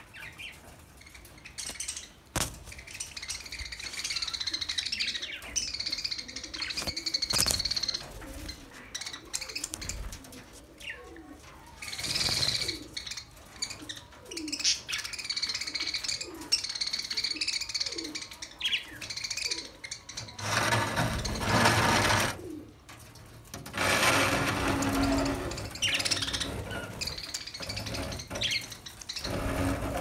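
A flock of budgerigars chirping and warbling, with many short overlapping calls. Two louder bursts of rushing noise come about two-thirds of the way through.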